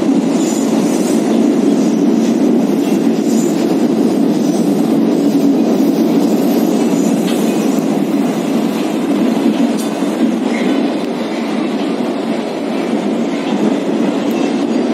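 Moscow metro 81-760 "Oka" train running through a tunnel, heard from inside the car: a steady loud rumble of wheels on rails, with a few faint short wheel squeals in the second half.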